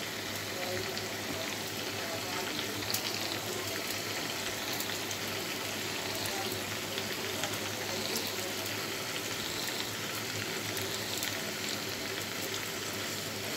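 Thin brinjal curry gravy bubbling in a pan over raised heat, a steady simmer with a few faint ticks as fried hilsa pieces are set into it.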